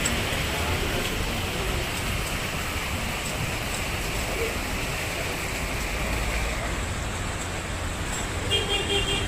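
Heavy rain falling steadily on a street as vehicles drive through the wet road. Near the end, a vehicle horn beeps in a short quick series.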